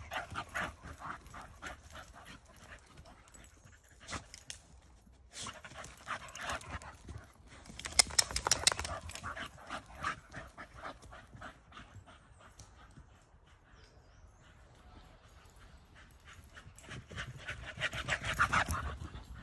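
Staffordshire bull terriers panting, with rapid footfalls on the twiggy forest floor. It is loudest about eight seconds in and again near the end, as the dogs come close.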